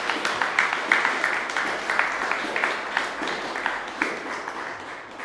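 Audience applauding, a steady patter of many hands clapping that slowly thins and fades near the end.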